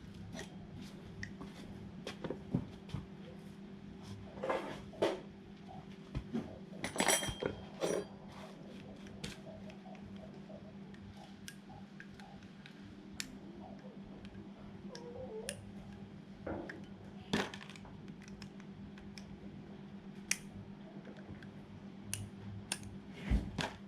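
Scattered clinks and taps of metal engine parts and hand tools being handled during lawn mower engine repair, over a steady low hum.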